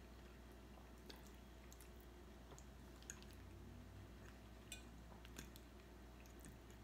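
Quiet eating: faint chewing with a few soft clicks of a metal fork against a glass bowl of pasta, over a low steady room hum.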